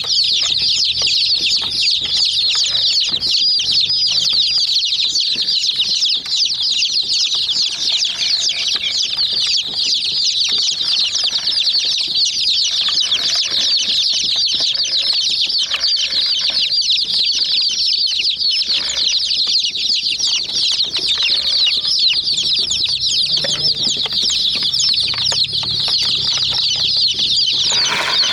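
Flock of young chicks cheeping continuously, many high peeping calls overlapping without a break.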